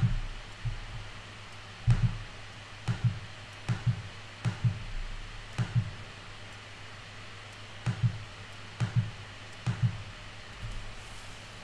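Soft clicks at a computer as charts are stepped through, coming in quick pairs: about eight pairs spaced roughly a second apart. A steady low hum runs underneath.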